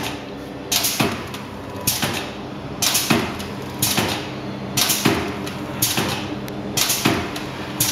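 Minipack 150 packing machine with its Minifill pump running through repeated packing cycles: sharp mechanical strokes with a short hiss, about one a second, over a steady motor hum.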